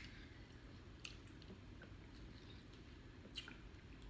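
Near silence with faint eating sounds: two soft clicks, about one second in and again near the end, as seafood shells are peeled, over a low steady room hum.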